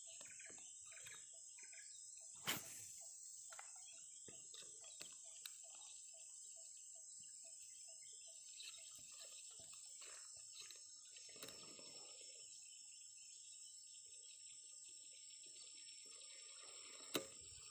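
Near silence with a faint, steady, high-pitched insect chorus, broken by a single soft click a couple of seconds in.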